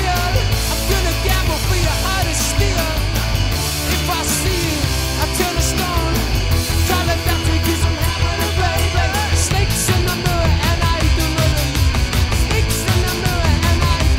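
Rock band playing live: distorted electric guitars, bass guitar and drums, with cymbal strokes coming thicker in the second half.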